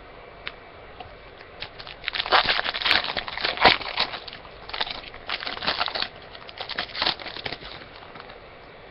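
Wrapper of a trading-card pack crinkling and tearing as it is opened, in several bursts of crackling, loudest a couple of seconds in.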